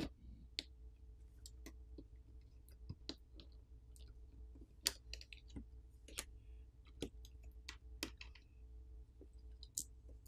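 Faint, scattered clicks and taps of a plastic pry pick and fingertips against a smartphone's main board and frame as the board is pried up and lifted out, with a low steady hum beneath.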